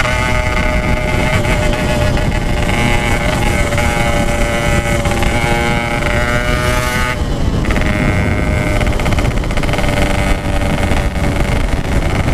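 Yamaha RX-King 135cc single-cylinder two-stroke motorcycle running at speed through a Packing Power exhaust, with wind rumble on the microphone. About seven seconds in, the engine note briefly drops off and then picks up again.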